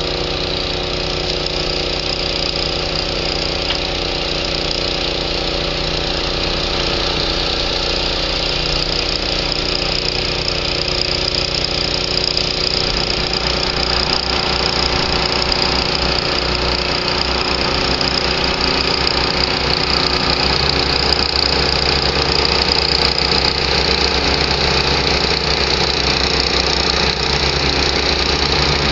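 Backhoe loader's diesel engine running steadily under load as it hauls a steel sailboat up the ramp on a trailer. Its sound deepens and grows a little louder from about halfway through.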